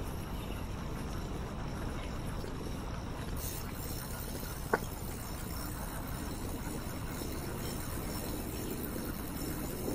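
Steady low rumble of a bicycle ride along a paved cycle track, with one sharp click about halfway through.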